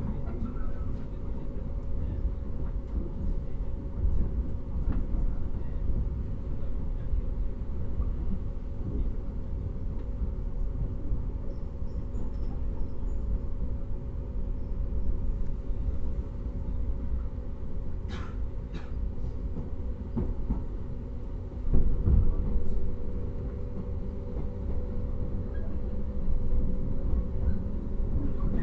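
Interior sound of a JR 115 series electric train's motor car (MoHa 114) running: a steady low rumble with a constant hum. There are a few sharp clicks about two-thirds of the way through, and a louder swell of rumble a little after that.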